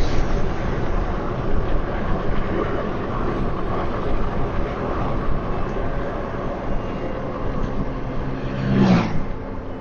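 A car driving, heard from inside the cabin: steady road and engine noise, with a brief louder swell about nine seconds in.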